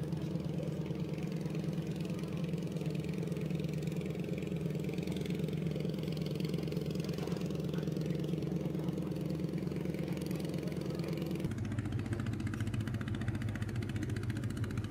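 Boat engine running steadily with an even hum. About eleven and a half seconds in, the sound cuts abruptly to a lower, more pulsing engine drone.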